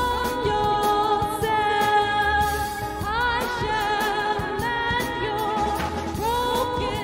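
A woman singing long, wavering held notes that slide up into pitch, over a musical backing with a steady beat.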